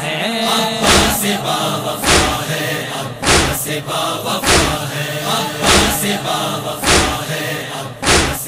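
Male voices chanting a Shia noha in chorus, held over a sharp, regular percussive beat that strikes seven times, about 1.2 seconds apart.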